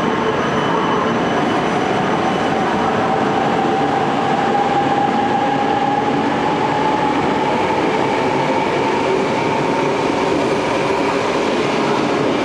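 E4 series double-decker Shinkansen cars rolling slowly along a station platform: a steady rumble of wheels and running gear with a faint motor whine that edges up in pitch.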